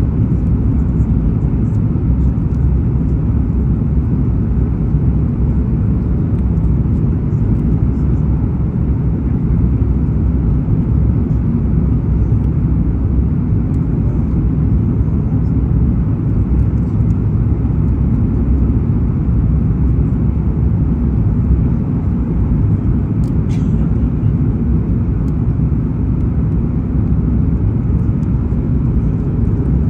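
Steady low rumble of cabin noise aboard a Boeing 737 MAX-9 on final approach: airflow and engines heard from a window seat behind the wing, with the flaps extended.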